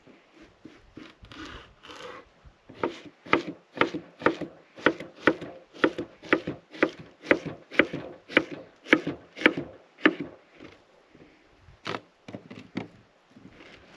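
Chef's knife slicing a zucchini on a wooden cutting board: steady chopping strokes, about two a second, with a few softer strikes and scrapes before and after the run.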